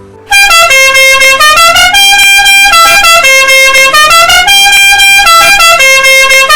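Multi-tone telolet bus horn playing its stepped tune of high notes, very loud. It starts abruptly just after the beginning and repeats the phrase about every two seconds.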